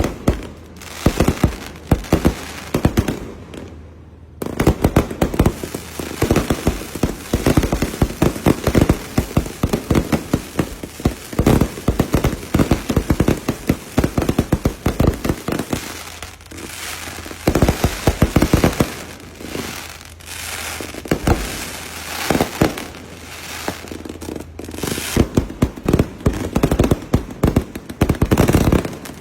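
Fireworks display: a dense, rapid run of bangs and crackles, with a short lull about four seconds in.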